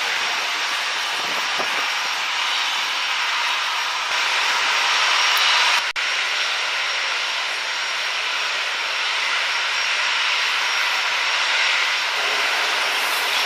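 Boeing 737's twin jet engines running at low taxi thrust as the airliner rolls forward: a steady rushing noise with a thin high whine over it. A short dropout about six seconds in.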